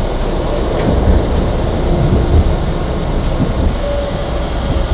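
Inside a Toyama Chitetsu 9000-series low-floor tram while it runs on street track: steady rumble of wheels and running gear, with a faint thin whine about four seconds in.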